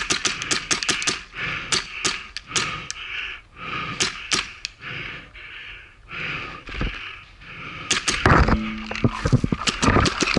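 Paintball markers firing: irregular strings of sharp pops, some in quick bursts. About eight seconds in, a cluster of louder knocks and thumps close by.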